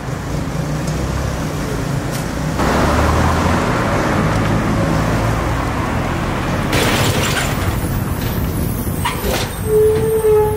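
Street traffic: a heavy vehicle's engine rumbles by, swelling into a rushing noise about two and a half seconds in that ends with a sharp hiss. Near the end a knock is followed by a steady high-pitched tone.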